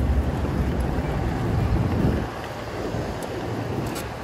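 Wind rushing over the microphone of a camera on a moving bicycle, a steady low rumble that eases a little about halfway through.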